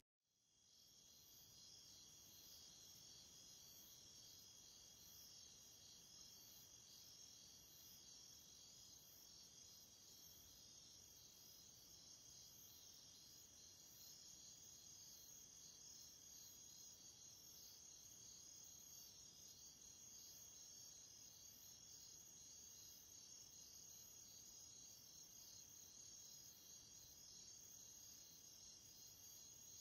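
Near silence, with only a faint, steady, high-pitched pulsing chirr.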